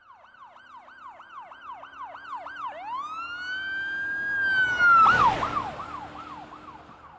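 An emergency vehicle's siren passing by: a fast yelp of quick repeated sweeps that switches to a long rising wail about three seconds in, then back to the yelp. It grows louder to a peak with a rush of vehicle noise about five seconds in, then fades away.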